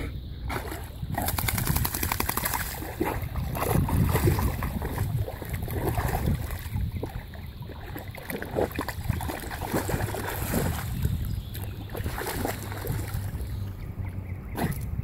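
Lake water splashing and sloshing irregularly as a flat-coated retriever wades and paddles through the shallows.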